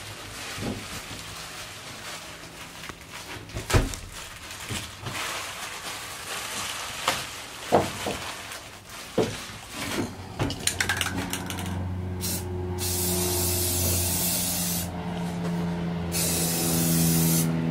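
Rust-Oleum aerosol spray can hissing in several short bursts, then a longer spray near the end, coating the freshly cut and filed metal edges of the roof hole against rust. Before the spraying there are a few scattered knocks and rustling. Under the later part runs a low steady hum.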